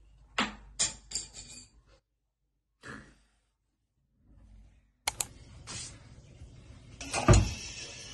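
A few sharp clicks and taps of small hard objects, then a pause. Kitchen clatter follows, with a heavy knock about seven seconds in as a cooking pot is handled.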